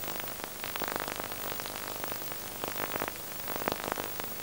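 Faint steady hiss, with a few scattered soft crackles and clicks.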